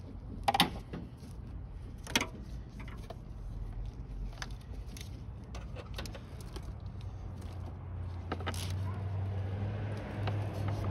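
Hands working loose plastic parts and clips in a car's engine bay: scattered clicks, knocks and rattles, with two sharp clicks in the first couple of seconds. A low steady hum underneath grows louder near the end.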